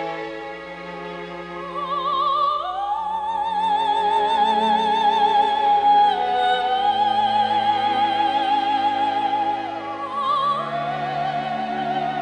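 Operatic soprano singing long, high held notes with a wide vibrato over orchestral accompaniment. The voice glides up into a high note about two and a half seconds in, steps down slightly near six seconds, and dips and climbs back near ten seconds.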